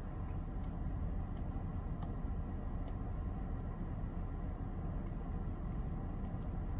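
Car engine idling, a steady low rumble heard from inside the cabin, with a few faint clicks.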